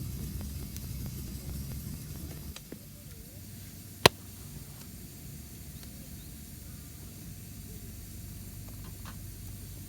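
A steady low rumble with a few faint clicks and one sharp, loud snap about four seconds in.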